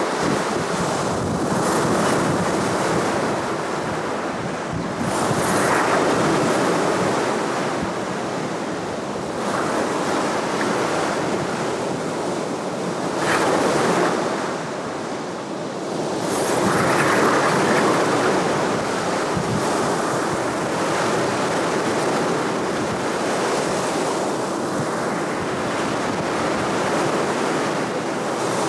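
Surf breaking and washing up a pebble beach, the wash swelling and easing every few seconds.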